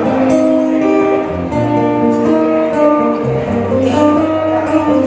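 Solo acoustic guitar playing a melody of picked notes that ring on over one another.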